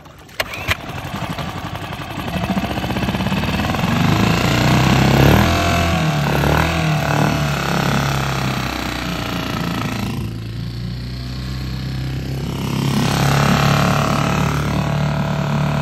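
Small dinghy outboard motor starting after its carburettor has been cleaned of a blocked jet and dirty petrol. A few clicks come first, then the engine catches and runs. Its speed rises and falls a few seconds in before it settles into a steady run.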